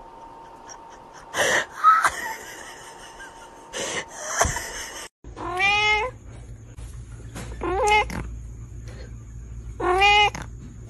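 Domestic cat meowing three times, about two seconds apart, each meow a drawn-out call that rises and then falls in pitch. Before the meows, a few short, harsh noises, the loudest about two seconds in.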